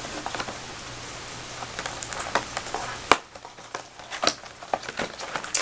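Product wrapping being peeled and crinkled by hand, giving irregular crackles and small clicks, with one sharp snap about three seconds in.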